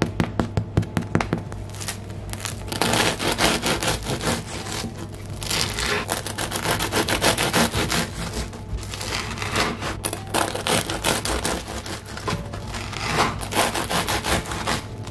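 A bread knife sawing through a crusty loaf on a wooden board, its crust crackling in repeated strokes. At the start, a run of quick taps on the loaf.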